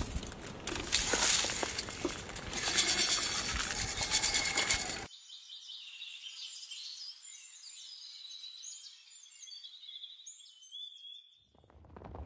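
Dense outdoor noise full of crackles and rustling. About five seconds in it cuts to birds chirping, high and thin. Near the end a fuller sound starts up.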